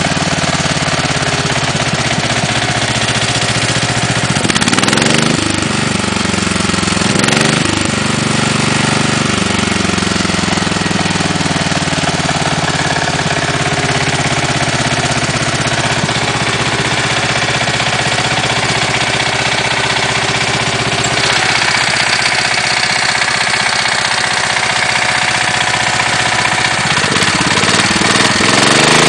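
Case 444 garden tractor engine running, with fast, even knocking under its note: piston slap. The revs swing up and back twice, about five and seven seconds in, and climb again near the end.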